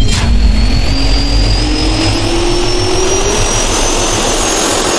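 Jet-turbine sound effect: a sharp hit right at the start, then a high turbine whine climbing slowly in pitch over a loud, steady rush of air.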